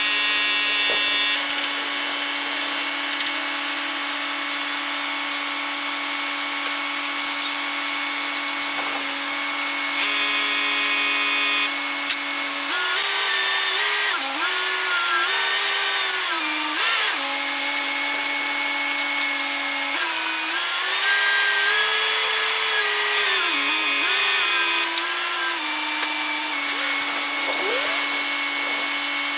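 Mobile crane running with a steady mechanical whine; twice, for a few seconds at a time, the pitch wavers up and down as the machine is worked, then settles back to the steady tone.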